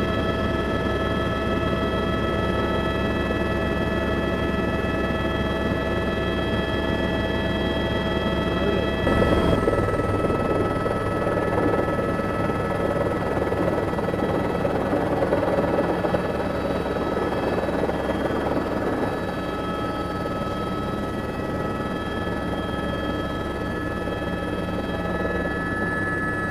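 Helicopter engine and rotors running steadily in flight, heard from inside the cabin: a loud drone under several constant whining tones, shifting slightly about nine seconds in.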